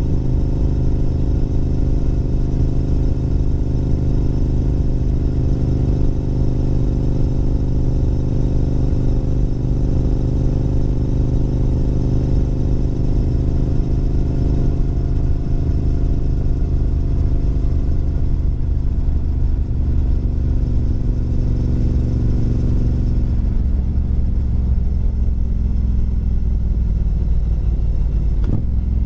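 2022 Triumph Street Twin's 900 cc parallel-twin engine running under way. About three-quarters of the way through, its note falls and settles lower.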